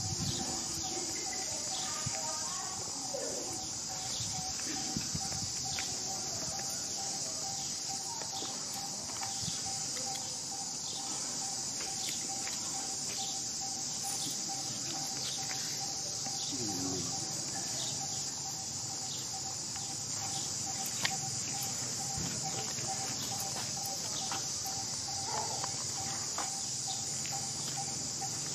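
Steady high-pitched drone of insects, with a thin pulsing tone underneath and scattered soft ticks. A few faint short calls come through now and then.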